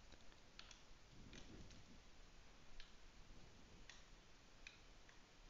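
Near silence with faint, irregularly spaced clicks of a computer mouse and keyboard, made while an image is pasted onto an on-screen whiteboard.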